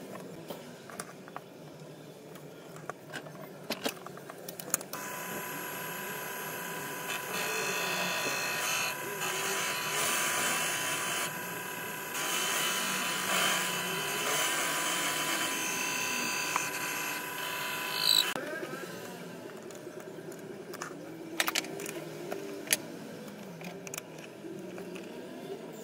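Proxxon mini lathe running, with a steady motor whine. From about five seconds in to about eighteen seconds, a loud, dense cutting noise from the tool working a steel rebar workpiece sits over the whine. It then stops with a brief falling glide as the lathe spins down, followed by scattered clicks of the chuck and workpiece being handled.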